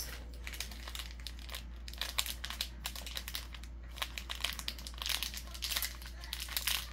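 Small plastic packet crinkling as it is handled and worked open with the fingers: a run of irregular crackles.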